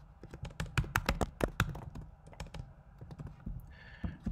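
Computer keyboard typing: a quick run of keystrokes over the first second and a half, then a few scattered clicks.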